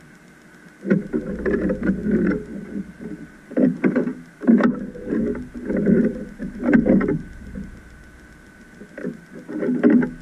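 Underwater ROV thrusters running in short bursts, starting and stopping several times, over a faint steady high-pitched whine.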